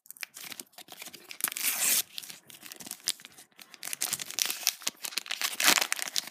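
A foil Panini sticker packet being torn open and crinkled in the hands, in crackling bursts, loudest about two thirds of the way in as the stickers are pulled out.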